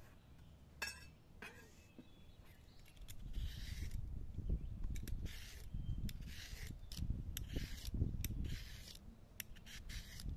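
Hand vegetable peeler scraping strips off a raw carrot, one short stroke about every second, after a couple of knife clicks on the cutting board at the start. A low rumble runs under the strokes from about three seconds in.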